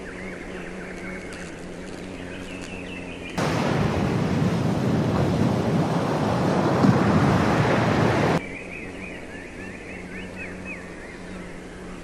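Small birds chirping faintly. About three and a half seconds in, loud, steady surf from waves breaking on a shore takes over and cuts off suddenly some five seconds later, after which the chirping returns.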